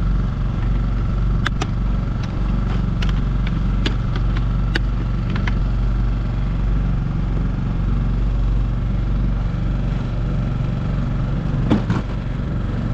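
Small boat's outboard motor running steadily at trolling speed. Scattered sharp clicks in the first few seconds and a louder knock near the end.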